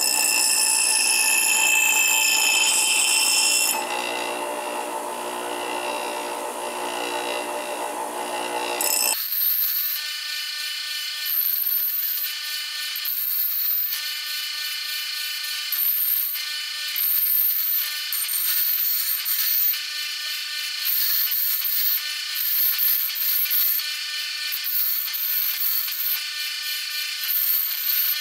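Bench grinder grinding a rusty, deeply pitted steel axe head. The loudest grinding is in the first few seconds. About nine seconds in, the low end cuts off suddenly, and after that the sound comes as thin, high-pitched passes that swell and ease every second or two.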